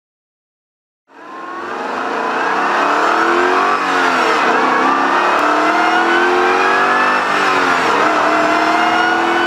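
Supercharged 5.0-litre V8 of a 2012 FPV GT Boss 335 with its stock exhaust, accelerating hard through the gears, picked up by a microphone on the car's flank. It fades in about a second in, climbs in pitch, and drops at upshifts about four seconds in and again near eight seconds before climbing again.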